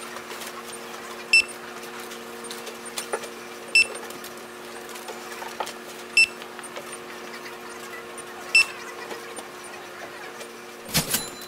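A steady drone of three low held tones, with a short bright click-and-ding about every two and a half seconds and a quick cluster of louder clicks near the end.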